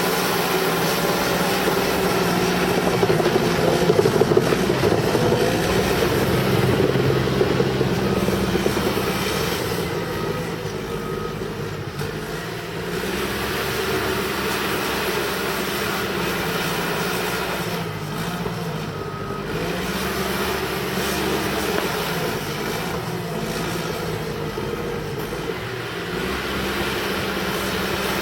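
Cat D5K bulldozer's diesel engine running continuously while dozing mud. Its engine note sags and picks back up a few times.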